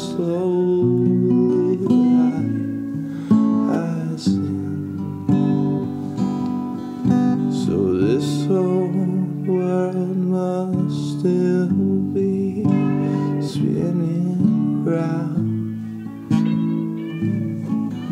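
Music: a song recording led by acoustic guitar, with plucked notes sounding throughout.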